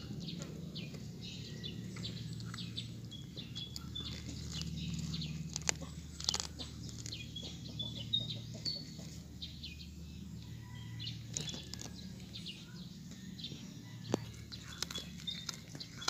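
Cat chewing and tearing at a dead zebra dove, making irregular clicks and crunches. Small birds chirp repeatedly in the background over a low steady hum.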